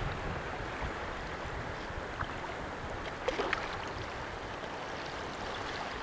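Steady outdoor wash of wind and surf on a rocky shore, with a few faint short high sounds around the middle.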